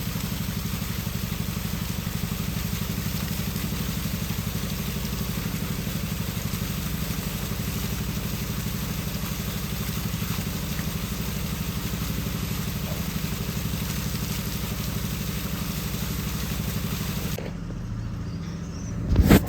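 An engine running steadily at an even idle, with a rapid regular pulse and a hiss of water over it. The hiss drops away about two seconds before the end.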